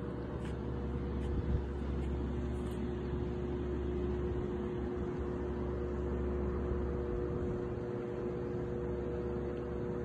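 Steady rumble and constant hum from a hydroelectric dam, two held tones over a low, even noise, with one brief bump about a second and a half in.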